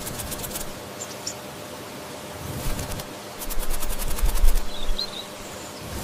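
Wings of a small animated bird fluttering rapidly in two short spells, the second with a low rumble under it, and a few short, high chirps in between.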